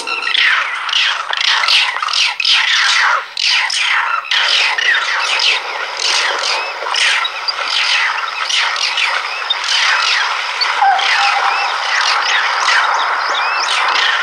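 A dense chorus of high-pitched squeaking and chirping animal calls, many short falling notes overlapping at a rapid rate.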